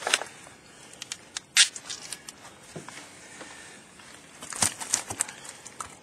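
Netted fish being handled and flopping against one another and the boat: irregular wet slaps and knocks, with a cluster of them near the end.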